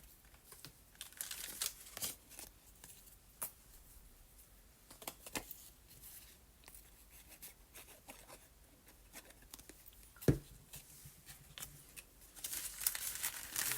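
Sheet of coffee-dyed paper being handled and trimmed down to size: scattered light rustles and crinkles, a single sharp tap about ten seconds in, and a denser stretch of paper rustling near the end.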